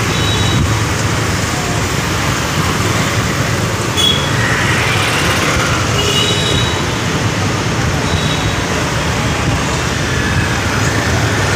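Street traffic heard from a moving vehicle: a steady rumble of road and engine noise, with brief high beeps of vehicle horns a few times.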